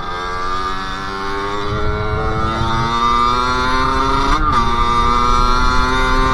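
Sherco SM-R 50's 50 cc two-stroke engine pulling under acceleration, its pitch climbing steadily. About four seconds in there is a quick blip and drop as it shifts up a gear, and then it climbs again.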